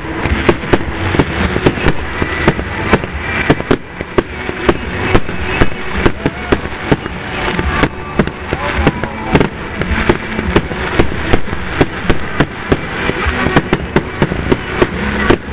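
Aerial fireworks going off in quick succession: a rapid string of sharp bangs, several a second, from shells bursting overhead.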